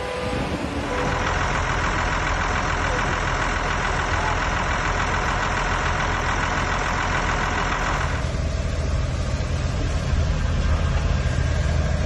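Vehicle engine running under a steady rushing noise. About eight seconds in, the sound shifts to a deeper, heavier engine rumble as a vehicle moves along a flooded road.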